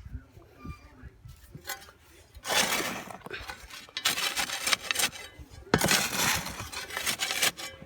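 Dry cement and aggregate being hand-mixed, a tool scraping and turning the gritty mix in repeated strokes that start about two and a half seconds in.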